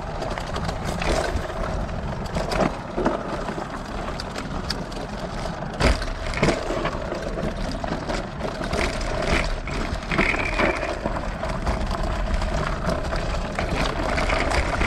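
Off-road handcycle rolling down a rocky dirt trail: tyres crunching over gravel and rocks and the frame knocking on bumps, with one sharp knock about six seconds in. A steady whine and a low wind rumble run underneath.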